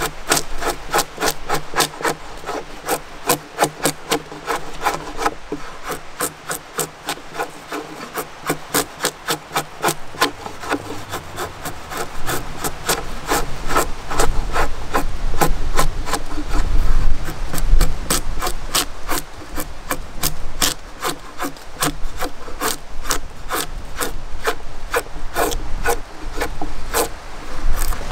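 Drawknife shaving a squared log timber: repeated scraping strokes of the steel blade peeling curls of wood, about two a second at first and coming faster later on.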